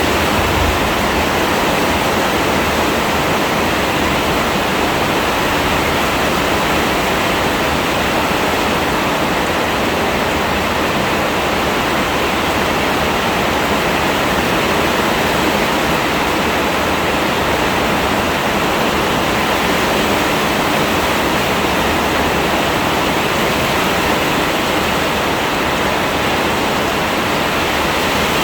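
Heavy rain falling, a steady, unbroken wash of noise.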